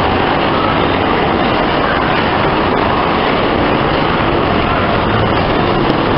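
Dark-ride car rolling along its track, a steady, even rumbling noise.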